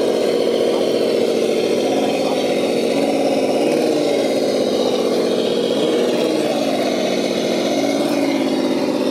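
Engine-like running sound, steady and loud, rising and falling a little in pitch now and then.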